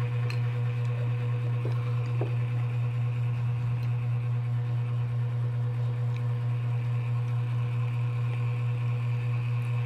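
A steady low hum with fainter steady tones above it, unchanging in level, with a few faint clicks in the first couple of seconds.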